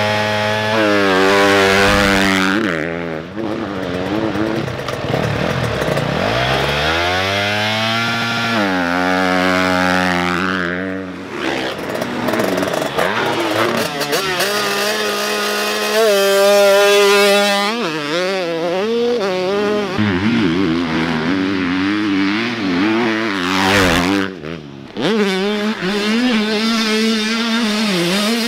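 Motocross dirt bike engines revving hard and shifting through the gears, the pitch climbing and falling again and again as the bikes accelerate, brake and corner.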